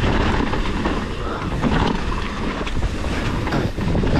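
Mountain bike riding a dirt trail: wind rushing over the microphone, with tyre noise and many short clatters from the bike over rough ground.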